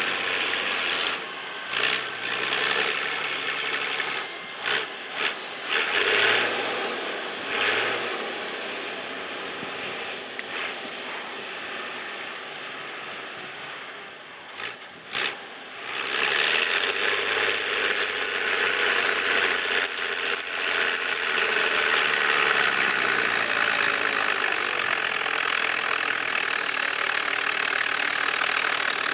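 Case IH 956 XL tractor's six-cylinder diesel engine working under load while ploughing, with irregular clicks and knocks over the first half. About sixteen seconds in it grows louder and steadier, with a high whine, as the tractor comes closer.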